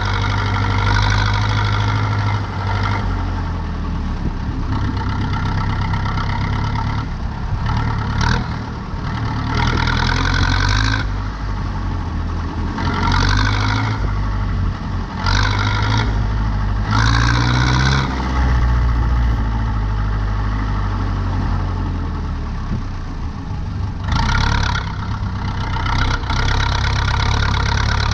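Zetor 7245 tractor's four-cylinder diesel engine running steadily, with a harsher, higher-pitched noise swelling in for a second or two every few seconds.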